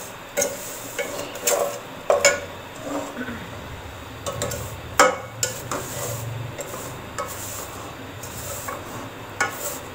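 Wooden spatula stirring fine vermicelli in a metal pot, scraping and knocking against the pot in irregular strokes. The loudest knock comes about five seconds in. This is the vermicelli being toasted in ghee.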